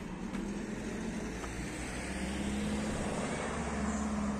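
Road traffic: a white minibus van drives past close by, its engine hum and tyre noise growing louder to a peak near the end as it goes by.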